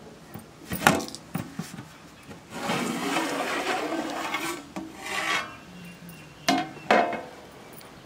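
Large aluminium lid worked off a big aluminium cooking pot. A sharp clank about a second in is followed by a few seconds of metal scraping on metal as the lid slides across the rim, then two sharp knocks near the end.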